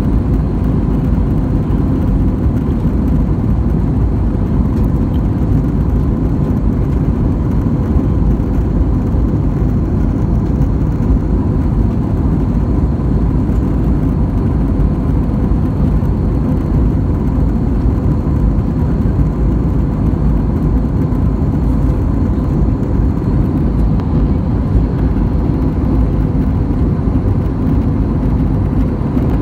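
Jet airliner cabin noise in flight, heard from inside the cabin: a steady low drone of engines and rushing air, with a faint steady hum riding on it.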